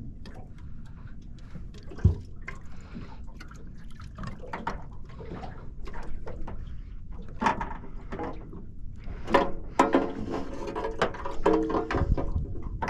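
Water sloshing and lapping against a small fishing boat's hull, with scattered clicks and knocks from gear being handled. There is one sharp knock about two seconds in, and a busier clatter from about halfway on.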